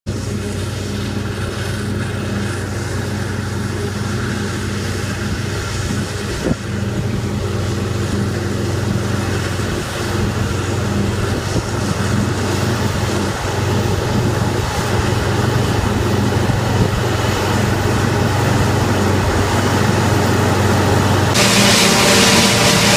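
Deutz Agrotron 7250 tractor running steadily under load, pulling a Dion forage harvester that is chopping corn: a steady engine drone that slowly grows louder as the machine comes nearer, with a single knock about six seconds in. Near the end the sound changes abruptly to a louder, hissing close-up of the harvester's corn head cutting stalks.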